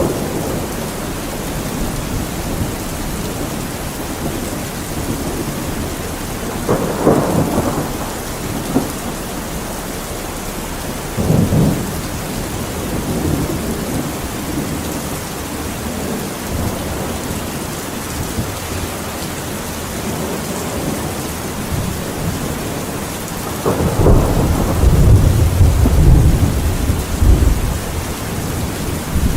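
Steady rain falling, with thunder rumbling: two short rumbles in the first half and a longer, louder low rumble near the end.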